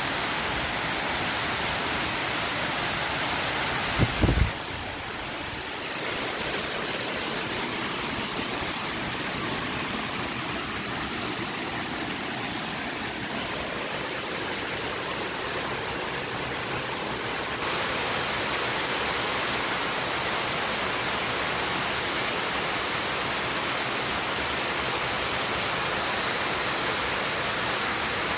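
Strong wind rushing steadily, with a brief loud low thump about four seconds in, typical of a gust buffeting the microphone.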